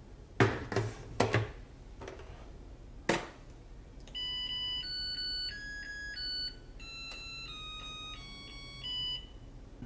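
Clunks as the inner pot is set into an electronic rice cooker and its lid is shut, with a click about three seconds in, then the rice cooker playing its electronic start-up melody of beeping tones for about five seconds after the cook button is pressed.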